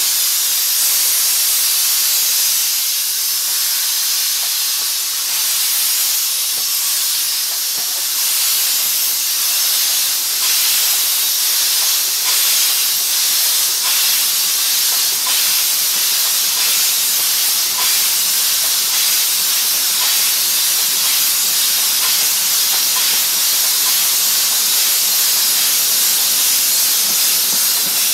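Steam locomotive's cylinder drain cocks blowing steam in a loud, steady hiss as the engine pulls away. The hiss starts suddenly, with faint regular ticks under it.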